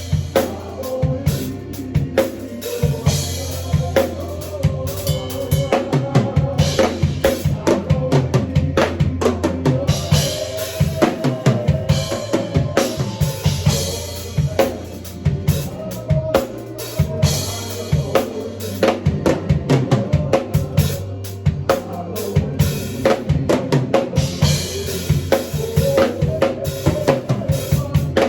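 Drum kit played in a fast, busy pattern of kick drum, snare and rim shots, with sustained notes from another instrument holding underneath.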